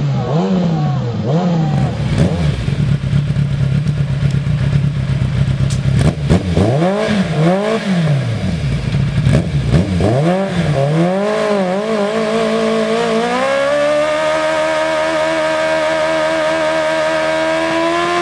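Engine with a loud exhaust being revved in short blips, the pitch swinging up and down several times with steady idling between. Near the end it is held at high revs that slowly climb.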